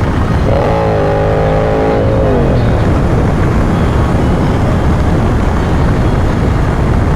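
Motorcycles riding on the road: wind rush and low engine rumble, with one engine's note held steady for a couple of seconds and then falling away, and another engine note rising near the end.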